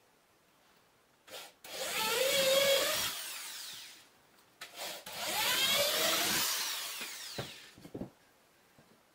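Cordless drill with a small twist bit boring two holes through a thin pine board, each run lasting about two seconds, the motor's pitch wavering as the bit cuts. A couple of light knocks near the end.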